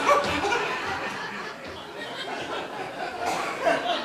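Theatre audience laughing at a gag, the laughter fading away, with a faint voice near the end.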